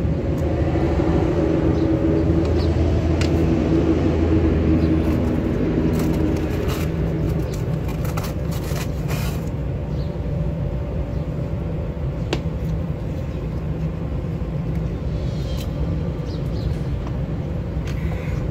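Low, steady rumble of a motor vehicle engine, louder for the first several seconds and then easing off slightly, with a few faint clicks over it.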